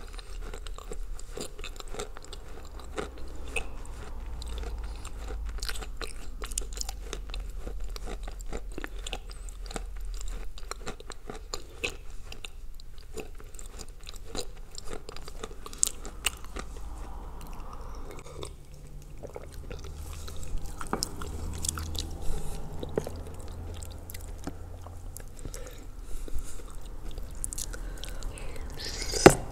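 A person chewing and crunching mouthfuls of edible clay (Ural clay soaked in blue Uzbek clay), with many small irregular crackling crunches, and a loud sharp bite into a fresh lump near the end.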